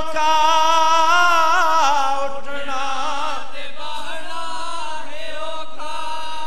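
A single voice chanting a noha, a Shia mourning lament, in long held notes with a wavering, ornamented pitch.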